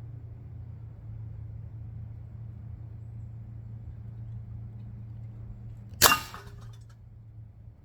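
A single shot from a .177 calibre air rifle about six seconds in, a sharp crack with a brief ringing tail, over a steady low hum.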